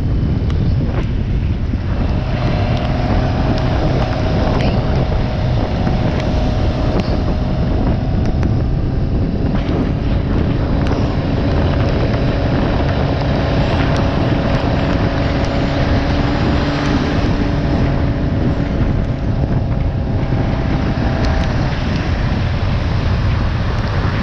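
Motorcycle riding at speed in the rain: steady wind rush on the microphone over the engine's drone and tyre noise.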